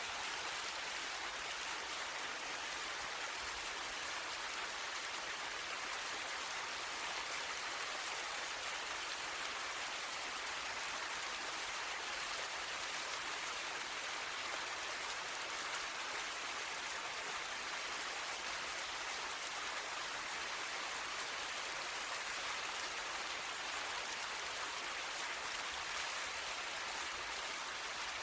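A medium-sized waterfall: water falling and splashing in a steady, even rush, mostly a hissing sound with little low rumble.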